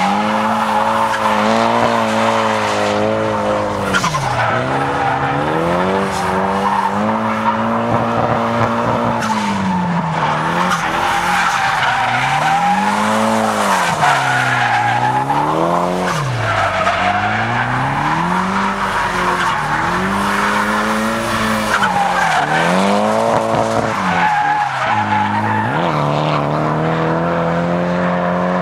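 Drift car sliding with its rear tyres spinning and squealing. The engine is held high in the revs, its pitch dropping and climbing again and again, over a steady hiss of tyre noise.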